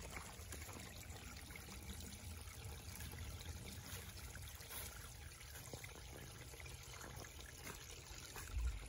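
Shallow creek water trickling faintly through and over a small stacked-rock dam. A soft low thump comes near the end.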